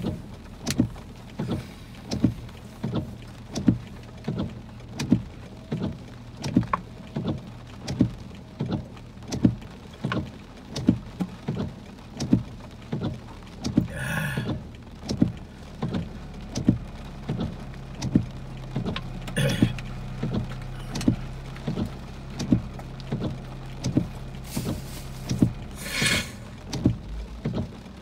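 Car windshield wipers sweeping back and forth in a quick, even rhythm, each stroke a short thump, over the car's steady low hum and heavy rain on the car, heard from inside the cabin. A few brief louder hissing surges of rain or spray come through, about halfway in, past two-thirds, and near the end.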